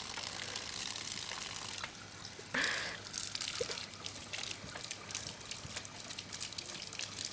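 Water running from a garden hose and splashing on the ground as someone rinses out his mouth, with a brief louder gush about two and a half seconds in.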